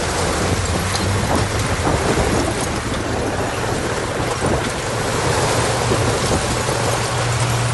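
Heavy diesel engine of earthmoving machinery running steadily under load, a constant low hum with an even hiss over it.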